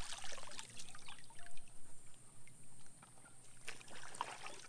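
Water splashing and trickling in short, irregular bursts as hands dunk and work a cloth water-filter bag in shallow billabong water.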